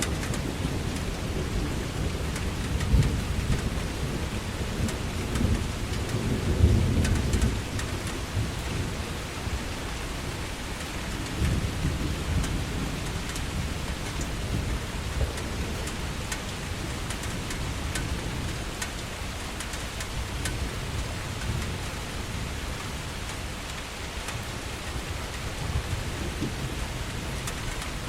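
Heavy rain falling steadily in a storm, with scattered sharp drop hits and low rumbles that swell loudest about three and seven seconds in.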